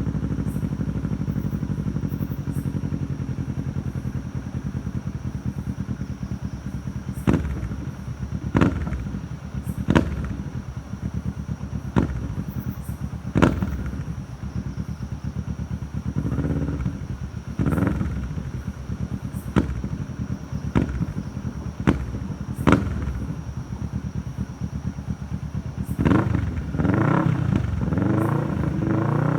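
Kawasaki Ninja 650's parallel-twin engine idling through its stock exhaust, with a run of short, sharp throttle blips from about seven seconds in. Near the end come a couple of longer revs that rise and fall.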